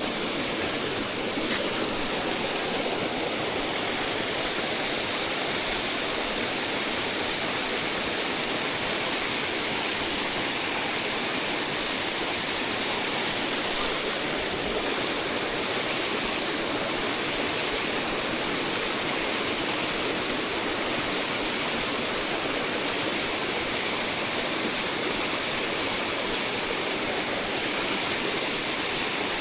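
Mountain brook trout stream rushing steadily, an even wash of running water that does not change. A few faint ticks sound in the first couple of seconds.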